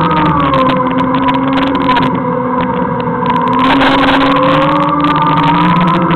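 Segway's electric drive whining as it rides, the pitch sliding down in the first second and climbing again about four seconds in as the speed changes.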